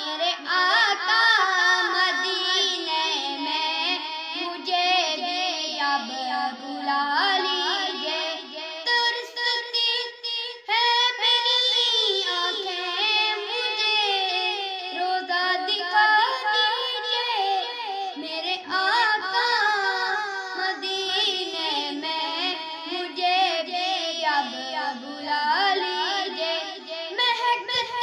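A boy singing an Urdu naat solo, his voice wavering through ornamented, melismatic lines with short pauses for breath.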